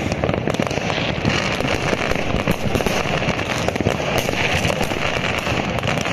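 Many consumer fireworks rockets and firecrackers going off at once: a dense, unbroken crackle of bangs and pops with no pause.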